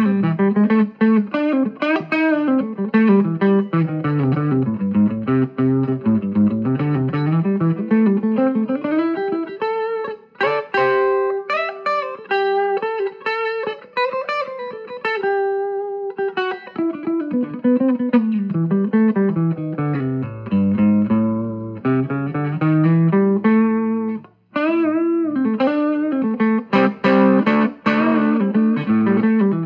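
Electric guitar with DeArmond gold-foil pickups played through a vintage 5-watt tube amplifier, originally a film-projector amp, into a 10-inch Cannabis Rex speaker. It plays runs of picked single notes and chords, with a held, wavering note in the middle and a brief pause about 24 seconds in.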